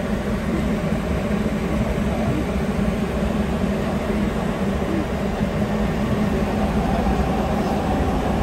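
Sapporo Tōhō Line rubber-tyred subway train running between stations, heard from inside the car: a steady running noise with a low hum.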